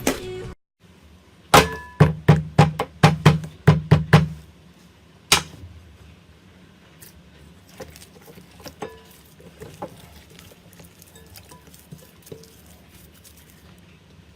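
Slime being handled and squeezed: a run of about ten sharp popping clicks over roughly three seconds, a single pop a second later, then faint soft crackling.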